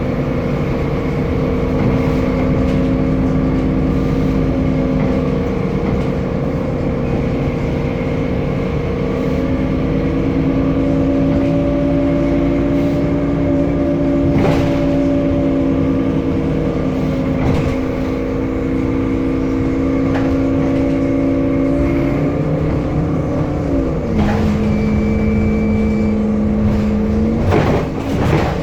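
Temsa Avenue LF city bus in motion with its DAF diesel engine and ZF Ecolife 6-speed automatic gearbox, heard as several whining tones that shift in pitch with speed. About 24 seconds in, the tones glide down to a lower steady note. Occasional knocks and rattles sound through it.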